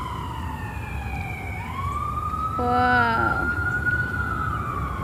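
Emergency-vehicle siren wailing, its tone sliding slowly down, then up and back down again, over a low rumble. A short pitched blast cuts in about three seconds in.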